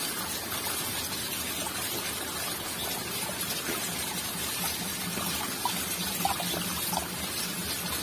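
Water trickling steadily.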